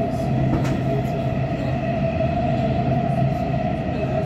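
Metro train running, heard from inside the car: a steady rumble of wheels on rail with an even, droning motor whine and one brief click about half a second in.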